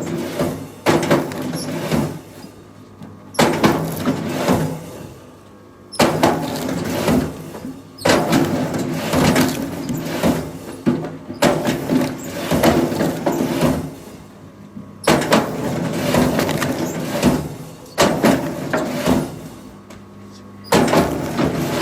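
Logs or heavy timber being handled: a sharp wooden knock or crack every two to four seconds, each followed by a second or two of clattering.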